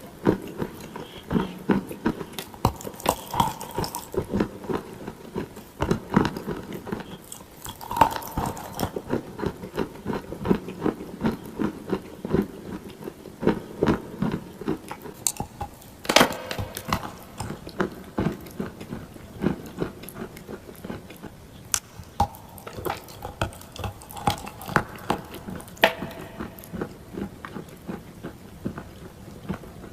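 Close-miked biting and chewing of clay, with sharp, irregular crunches throughout.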